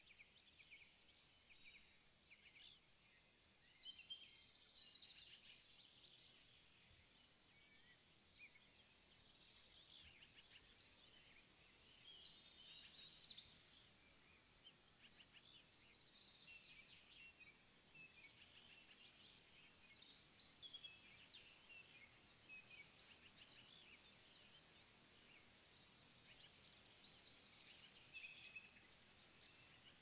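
Faint birdsong from several birds: a fast pulsed trill repeating every few seconds amid scattered chirps and short whistles, over a faint steady high tone.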